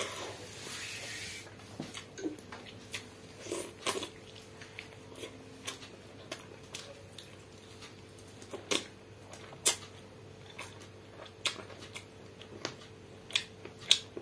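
Wet eating sounds from hand-eating pakhala, rice soaked in water: the fingers squelch the rice in the watery bowl at first, then come irregular sharp lip smacks and mouth clicks from chewing.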